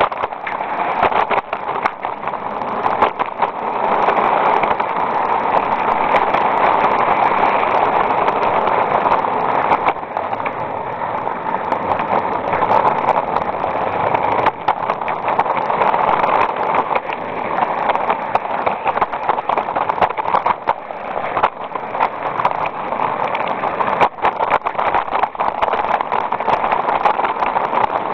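A 16mm-scale, 45mm-gauge live-steam garden locomotive running under the camera: a steady hiss of steam with many scattered short clicks from the running gear and track.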